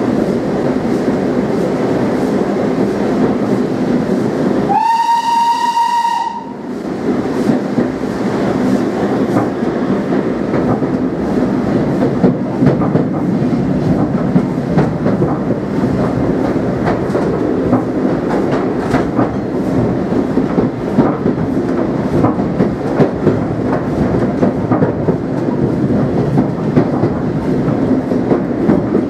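Southern Railway U class steam locomotive running, heard from its tender: a steady rumble of the train with regular rail-joint clicks. About five seconds in comes one whistle blast, lasting about a second and a half.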